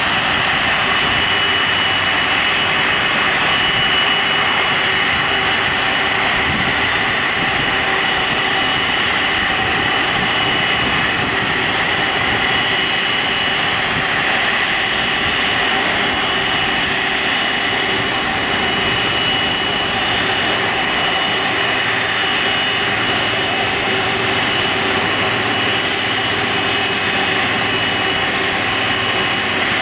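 Airbus A330's jet engines running at taxi idle: a steady rushing noise with a faint high whine over it.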